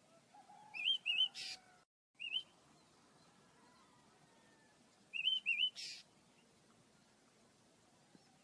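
Pet birds chirping: quick, high, wavy chirps in small clusters about a second in and again about five seconds in, each cluster followed by a brief harsh rasp.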